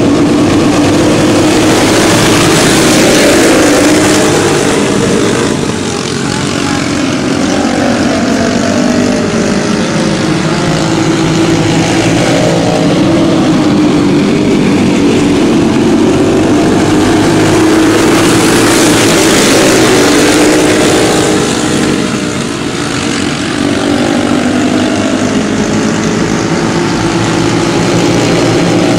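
A field of racing karts with Briggs & Stratton Animal single-cylinder four-stroke engines running at full throttle together, many engine notes overlapping. The sound swells as the pack comes by about three seconds in and again near twenty seconds, then eases as it moves away.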